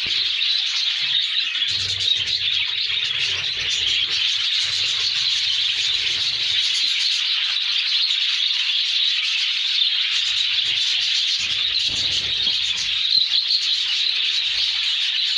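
A dense chorus of many small birds chirping at once, steady and unbroken, with a low rumble underneath at times.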